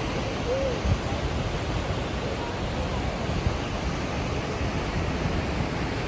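Steady rush of white water from McCloud River's Upper Falls and the rapids below, an even continuous roar with a deep rumble underneath.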